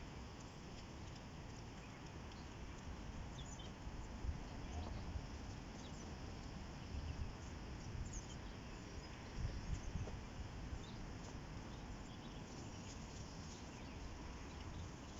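Riverside outdoor ambience: a steady rushing hiss with low rumbling gusts, loudest around four seconds and ten seconds in, and faint high bird chirps scattered through.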